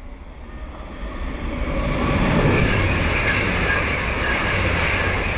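Two coupled TransPennine Express Class 185 diesel multiple units passing through the station without stopping. The noise builds over the first two seconds, then runs loud and steady: a heavy rumble of engines and wheels with a high whine over it.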